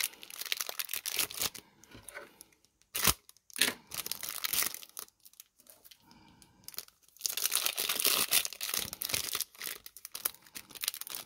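Clear plastic wrapper sealed around a trading card being torn and peeled open by hand: irregular crinkling and tearing, with two sharp snaps about three seconds in and a long stretch of dense crinkling in the second half.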